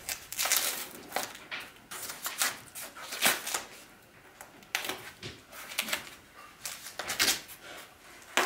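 Packing tape on a cardboard wrapper being cut and worked loose along the edges: irregular scratchy rasps and crackles of tape and cardboard, some sharp.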